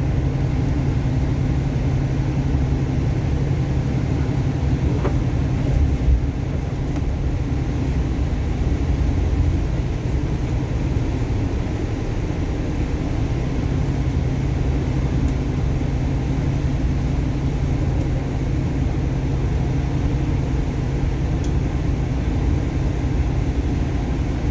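Steady low engine rumble with a constant hum, easing slightly about halfway through.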